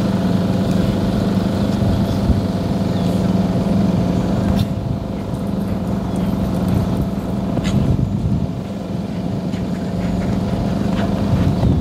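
Steady low mechanical hum, like an idling engine, with a few faint clicks.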